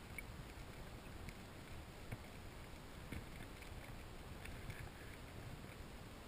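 Underwater ambience picked up by a camera in a waterproof housing: a faint, steady low rumble of moving water with scattered small clicks and knocks, the sharpest about two and three seconds in.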